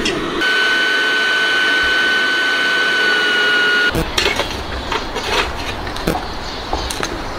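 Handheld butane torch flame hissing with a steady whistle as it lights charcoal in a metal chimney starter; the sound stops abruptly a little before the halfway point. After that come scattered clinks and knocks of the starter and charcoal being handled.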